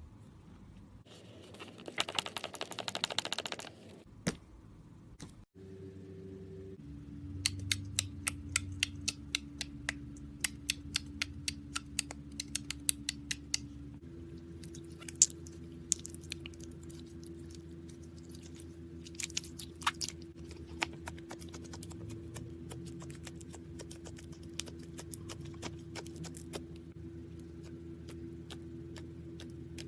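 Slime being squeezed and pressed, giving many sharp, irregular clicks and pops, some in quick runs, over a steady low hum.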